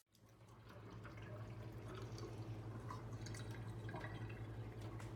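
Faint dripping and small wet ticks of water, over a steady low hum, fading in after a sudden cut.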